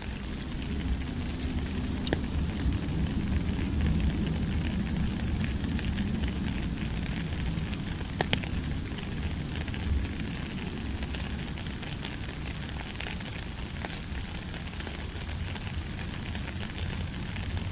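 Steady rain falling, an even hiss over a low rumble, with a few sharp drop clicks standing out.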